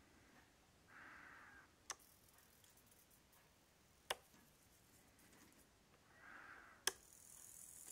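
Faint, short whirring of a small servo twice, as the folding wings of a 1:32 scale RC Lemken Karat 9 cultivator move. Sharp single clicks come in between, about every two to three seconds.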